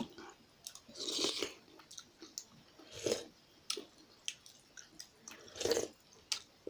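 Close-miked chewing of jhol momo, steamed dumplings in a spicy soup, with wet mouth clicks and three louder breathy bursts about one, three and nearly six seconds in.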